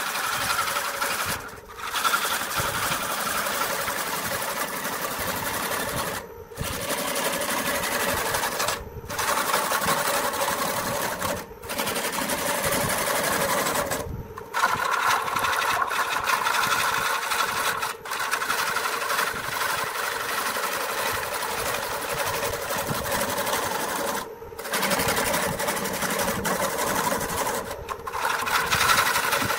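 Homemade electric wood lathe spinning a wooden bowl while a hand-held turning tool cuts it. The cutting makes a steady rough shearing noise over the motor's hum, broken by brief drop-outs every few seconds as the tool comes off the wood.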